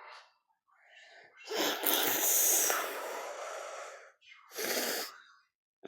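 A man snoring: one long rasping snore lasting about two and a half seconds, then a shorter one, with a third just starting at the very end.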